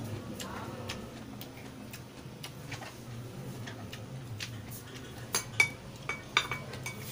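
Wooden spoon scooping rice from a ceramic bowl: faint scattered ticks at first, then a handful of sharper clinks against the bowl a little past five seconds in.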